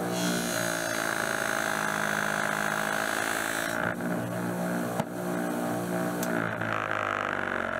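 Electric motor spinning an abrasive wheel runs steadily while a high-carbon-steel knife blade is held against the wheel, giving a hissing grind for about the first four seconds. The blade comes off, a sharp click sounds about five seconds in, and the blade touches the wheel again lightly near the end.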